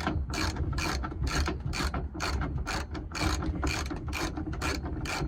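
Hand ratchet wrench clicking in a steady run, about four clicks a second, as a bolt is turned.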